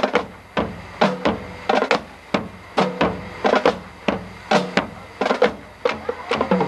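High school marching band playing a percussion-heavy passage: loud drum strikes with deep low thuds, about two a second, mixed with ringing pitched notes.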